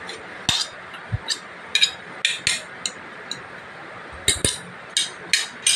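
A metal serving utensil clinking and tapping against a ceramic platter in about a dozen short, irregular knocks as food is scooped and pushed onto it.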